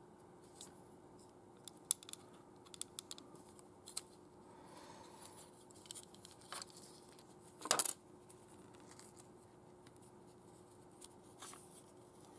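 Hard plastic parts of a model toy being handled and fitted together by hand: scattered small clicks and ticks, with a louder short scrape about two-thirds of the way through.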